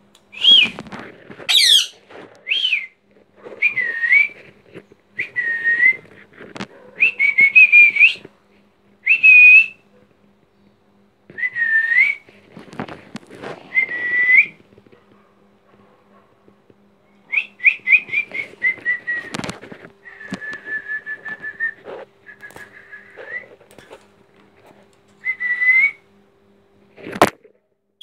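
Young rose-ringed parakeet (Indian ringneck) whistling a string of short calls, each a brief rising or falling whistle, given in bouts with pauses between. It gives sharp high screeches about two seconds in and near the end, over a faint steady hum.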